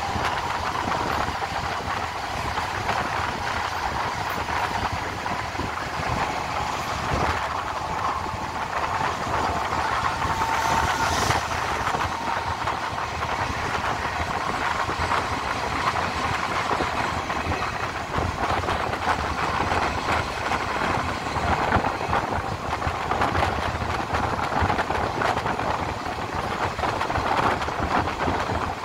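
Passenger train running along the line, heard from on board: a steady rumble of wheels on rails and the running gear, with a faint steady whine through the first half and a brief hiss about eleven seconds in.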